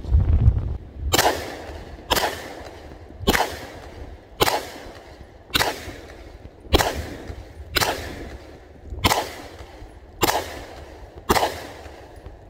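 Taurus G3C 9mm pistol firing ten shots at a steady pace of about one a second, emptying a full 10-round magazine.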